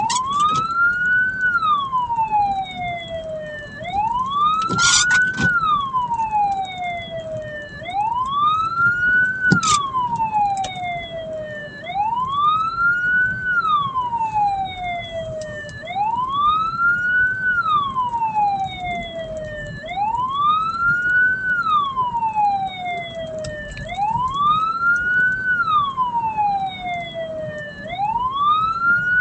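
Hearse siren wailing: a tone that rises quickly and then falls slowly, repeating about every four seconds. A few sharp clicks sound in the first ten seconds.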